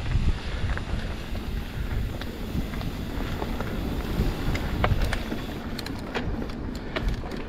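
Wind buffeting the microphone of a camera on a moving mountain bike, a steady low rumble, with scattered clicks and rattles that come thicker in the second half.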